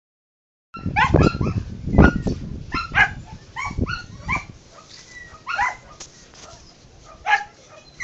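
A rapid, irregular series of short, sharp barking animal calls, starting about a second in and thinning out toward the end, with low thumps on the microphone in the first couple of seconds.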